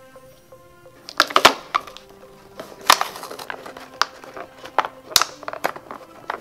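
Soft background music, broken from about a second in by several sharp knocks and clatters of plastic toy boats being handled, the loudest around a second and a half, three and five seconds in.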